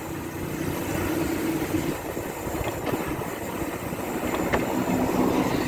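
Riding noise on a bicycle: wind and road rumble on the microphone, with a motor vehicle's engine humming steadily underneath.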